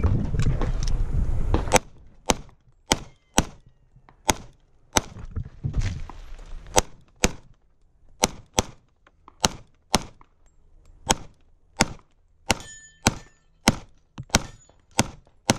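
A rapid string of semi-automatic pistol shots during a timed practical-shooting stage, fired mostly in quick pairs with short pauses between. The first shot comes after nearly two seconds.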